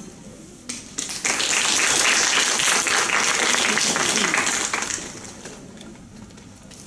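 Audience applauding, starting about a second in and dying away after about four seconds.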